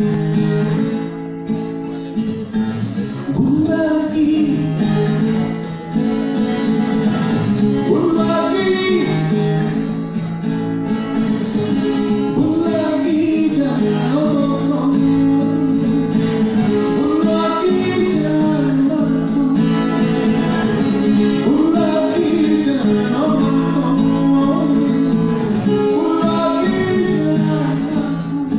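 A man singing into a microphone while strumming chords on a steel-string acoustic guitar, a live solo performance.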